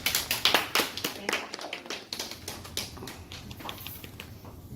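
A few people clapping: scattered sharp claps that are dense at first and thin out over about three seconds.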